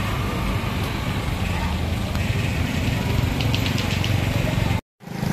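Street ambience dominated by motor vehicle engines idling and running, a steady low rumble with faint crowd voices. It drops out suddenly for a moment near the end.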